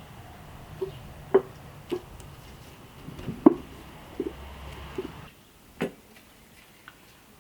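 Kitchen utensils knocking and clinking against bowls and a work surface while sauce ingredients are prepared: about seven separate sharp knocks spread over several seconds. A low steady hum underneath stops about five seconds in.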